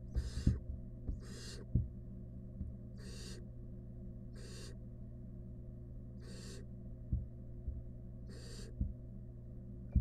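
Barn owl nestlings giving their hissing, snore-like food-begging calls: six rasping hisses of about half a second each, one every one to two seconds. Under them runs a steady low hum, with a few soft knocks as the chicks shift in the nest box.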